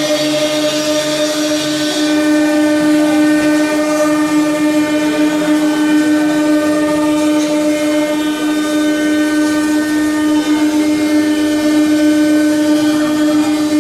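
9 kW HQD spindle on a CNC router running at a constant high speed while milling a mold: a steady, unchanging whine with a hiss of cutting noise over it.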